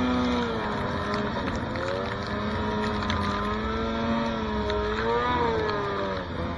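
Snowmobile engine running through deep powder. Its pitch drops as the throttle is eased, then climbs again as it is opened, with a brief surge of revs near the end.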